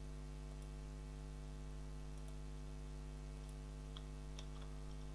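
Steady electrical mains hum, with a few faint computer mouse clicks about four seconds in.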